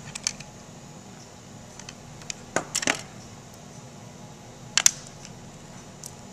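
Sharp little clicks and taps of metal wick tabs and a metal poker against aluminium foil tart tins as candle wicks are pressed into place: a pair close together about two and a half seconds in, another about five seconds in. A steady low hum runs underneath.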